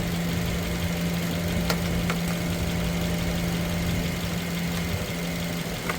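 Subaru Impreza engine idling steadily under the open hood, a low, even hum, with a couple of light clicks about two seconds in.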